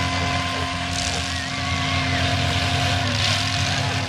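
Demolition derby cars' engines running at high revs, one holding a steady pitch for about three seconds before briefly dipping and picking up again.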